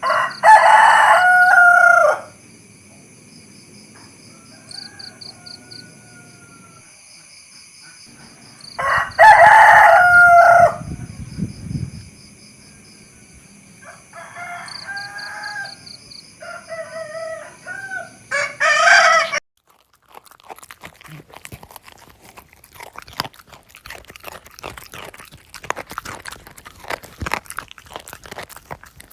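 Rooster crowing loudly twice, near the start and about nine seconds in, with quieter clucking calls between and a shorter loud call around nineteen seconds. After that come faint rapid clicks and crackles.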